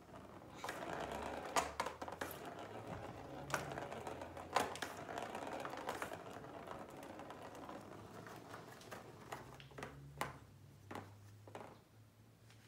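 Plastic ball rolling and rattling around the circular track of a cat's ball-and-scratcher toy as a cat bats it, with a few sharp clicks as the paw knocks it. The rattling dies away near the end.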